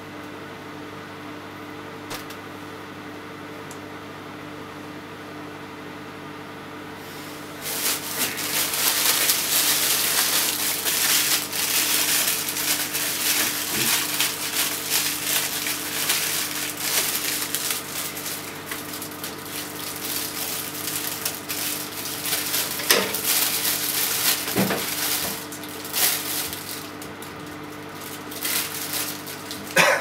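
Microwave oven running with a steady hum while water boils inside a microwave boiling cooker. About eight seconds in, a loud crackling, spattering bubbling starts and eases off toward the end, with a few knocks near the end.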